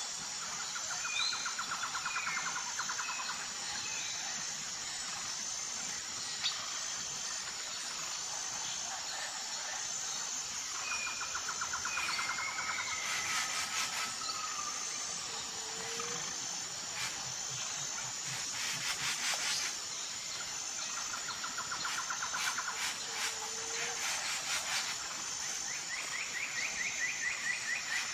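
Natural outdoor ambience: a steady, high, pulsing insect chorus with birds calling in short repeated trills and chirps, and a few stretches of rapid clicking.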